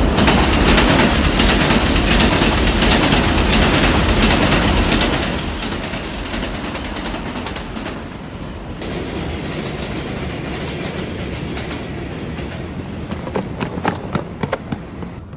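Subway train running on the tracks, loud for about five seconds and then quieter, with a series of sharp clicks near the end.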